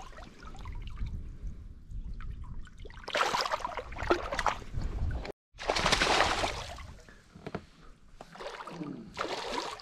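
Water splashing and sloshing beside a small river boat in several bursts, as a hand in the water lets a smallmouth bass go. The sound cuts out completely for a moment about halfway through.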